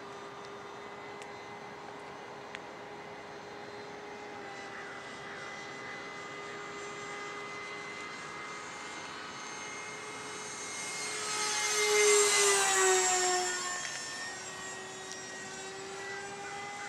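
A radio-controlled AirField 70 mm F-16 jet in flight, its electric ducted fan giving a steady whine. About two-thirds of the way through, it makes a close pass, growing loud and dropping in pitch as it goes by, then settles back to the steady whine.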